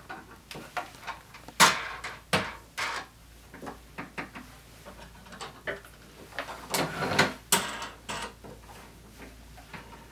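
Irregular clicks and light knocks as hands work the clamp screws and bar of a watercolor paper stretcher frame, tightening them down on the folded paper edge. The loudest knock comes about a second and a half in, and there is a cluster of clicks around seven seconds in.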